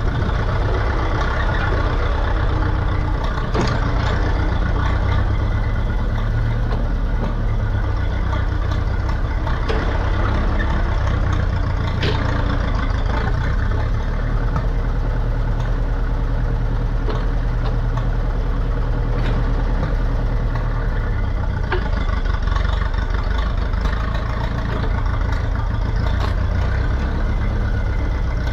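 Ferguson TE20 tractor engine running steadily at a low, even speed, with a few brief clicks or knocks over it.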